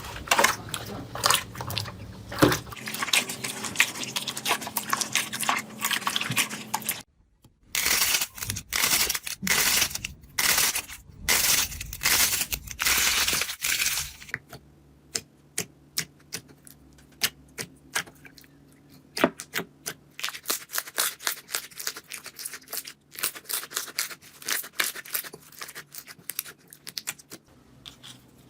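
Hands pressing and poking slime, making crackling clicks and pops. In the middle stretch louder crunchy bursts come in quick runs; later the clicks are sparser.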